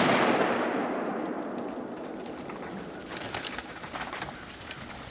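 A single .30-06 rifle shot from an M1 Garand: the blast fades and rolls away over about three seconds.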